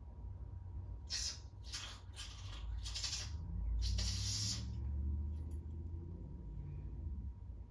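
Five short bursts of spray hissing from a nozzle, typical of blasting cleaner or air through the carburetor's jets and passages, over a low rumble.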